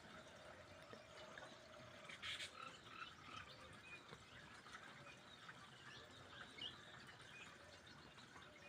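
Faint night chorus of frogs croaking, with many short scattered calls. A brief burst of noise comes about two seconds in.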